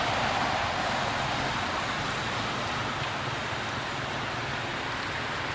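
Steady outdoor background noise: an even rush with no distinct calls, knocks or other events.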